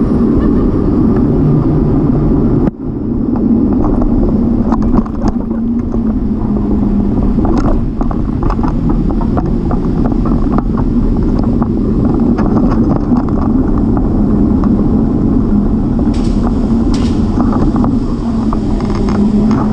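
Steady rumble of wind and tyre noise from a bicycle being ridden, with scattered short clicks and rattles.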